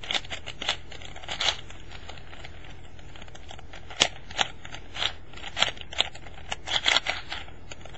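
Plastic 4x4x4 Rubik's Revenge cube being turned by hand: irregular clicks and clacks as its layers snap round, sharpest about four seconds in, over a low steady hum.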